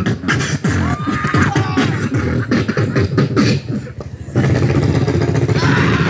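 Beatboxing into a cupped handheld microphone, amplified through a portable speaker: quick, rhythmic kick-and-snare sounds with a few gliding hummed notes. The beat drops out briefly about four seconds in, then comes back denser.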